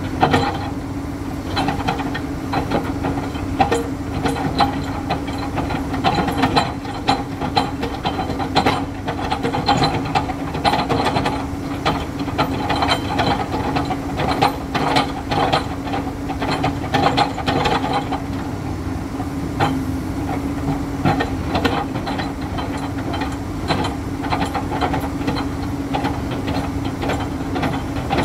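Komatsu PC210 excavator's diesel engine running steadily under load, with irregular metallic knocks and clanks from the bucket pressing a steel sheet pile into the ground. The knocks come thickest over the first two-thirds, then thin out.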